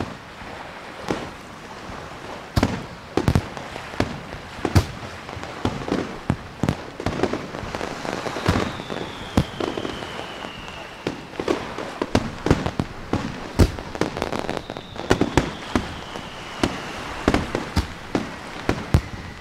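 Layered fireworks sound effects: a dense, irregular run of bangs and crackle, with two whistles falling in pitch, about nine seconds in and again about six seconds later.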